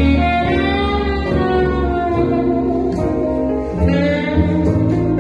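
Music: a song with a sung melody over sustained bass and instrumental accompaniment.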